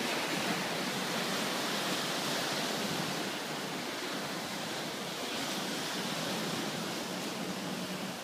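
Choppy waves breaking and washing against a concrete seawall, a steady rushing, hissing surf without let-up.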